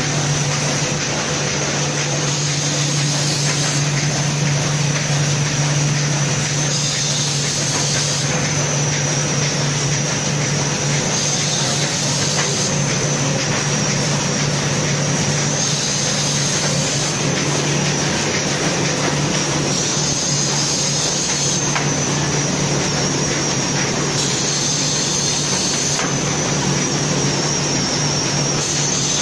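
Muller Martini Amigo Plus perfect binder running: a steady low hum with a high whine over it, and a brighter hiss returning about every four to five seconds.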